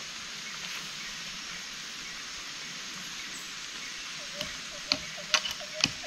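Steady rain hiss, with a run of sharp knocks beginning about four and a half seconds in, about two a second.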